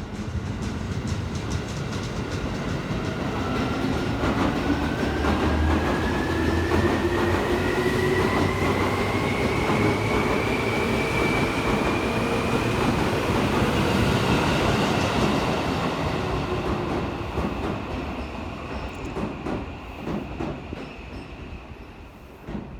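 Seibu 2000 series electric train pulling out of a station. Its traction motors give a whine that rises steadily in pitch as it accelerates, over the rumble of its wheels. The sound then fades as the train draws away, with wheels clicking over rail joints near the end.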